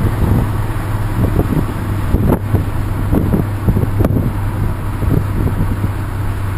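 Renault Kangoo 1.6 petrol van driving: a steady engine and road drone with irregular buffeting, like wind on the microphone, over it.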